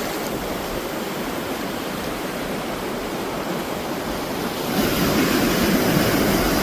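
Ocean surf washing steadily, with wind on the microphone; about five seconds in the noise grows louder, with a low rumbling running under it.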